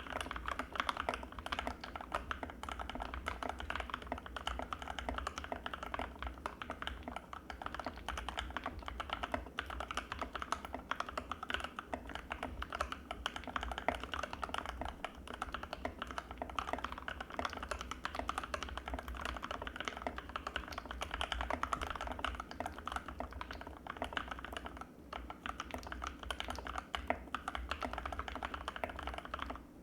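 Continuous fast typing on an Anne Pro 2 mechanical keyboard with Gateron Red linear switches, a dense stream of keystroke clacks with a short lull near the end.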